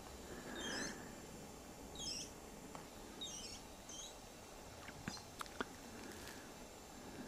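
Short, high chirps from a small animal, repeated about every second, over a faint steady hiss; a few sharp clicks come a little past the middle.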